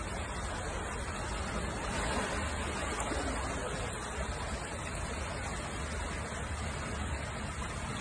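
Steady rushing wash of water as a small car wades slowly through deep floodwater.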